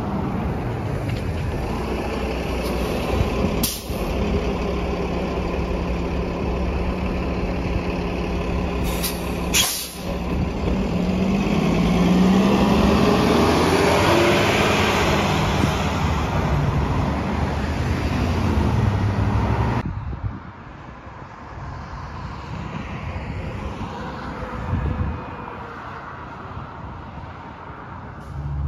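City transit bus idling at the stop, with a short sharp air hiss about four seconds in and another around ten seconds, then its engine revving up as it pulls away. After about twenty seconds only quieter, distant traffic is heard.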